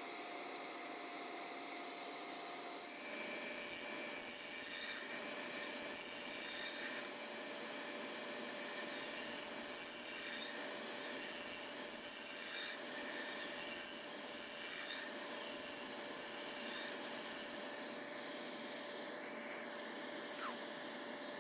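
Wood lathe running with a thin steady whine while a scraper cuts inside a spinning dry spalted maple vessel. From about three seconds in, the cutting gives repeated bursts of hissing scraping that die away a few seconds before the end.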